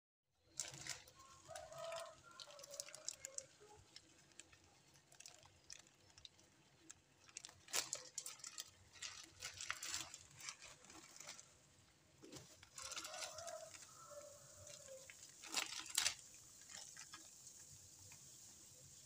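Water heating to the boil in a steel pot on a gas stove, with scattered clicks, pops and a few sharper knocks, the loudest around eight, ten and sixteen seconds in. Twice, about a second and a half in and again around thirteen seconds, a short run of animal calls sounds in the background.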